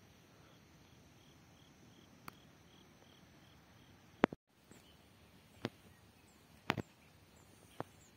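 Quiet open-air ambience: a faint high chirp repeats about three times a second for the first three seconds or so, then a handful of sharp clicks or taps sound about a second apart, the loudest around the middle.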